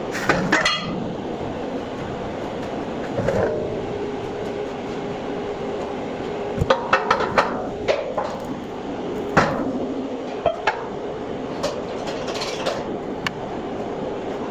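Steel being worked on during welding: a steady hum with a faint held tone, broken by sharp metal clanks and knocks, several in quick succession about halfway through.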